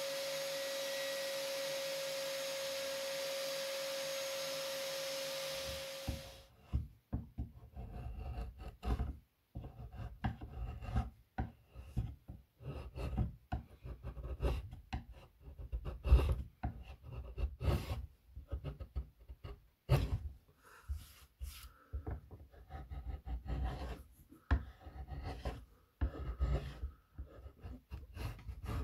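Bench table saw running with a steady tone as a pine board is fed through it, stopping about six seconds in. Then a hand chisel scraping and paring wood along a rebate in the pine board, in short irregular strokes.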